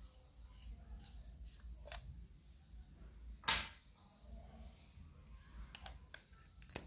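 Light clicks and taps of packaging being handled, with one loud sharp snap about three and a half seconds in and a few quicker clicks near the end.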